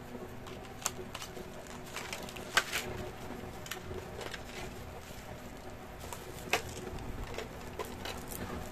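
Clear plastic blister packaging and bubble wrap crackling and clicking as a laptop HDD caddy is handled and lifted out of its tray, in scattered sharp clicks, the loudest about two and a half seconds in and again near six and a half seconds.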